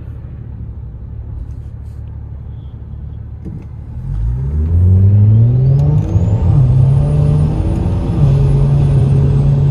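Single-turbo BMW N54 inline-six, heard from inside the cabin, rumbling low at first and then, about four seconds in, going to full throttle for a datalog pull at about 23 psi of boost: the engine note climbs sharply and holds, with two brief breaks. A high turbo whistle climbs with it and then slowly falls away near the end.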